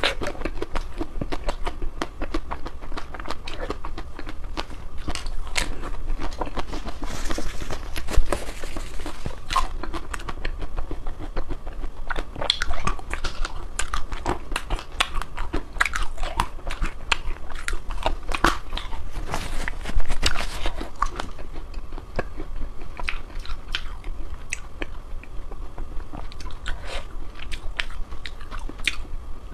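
A person biting and chewing ice cream: a steady run of crunches and wet mouth clicks, with louder, longer crunching about 8 seconds in and again about 20 seconds in.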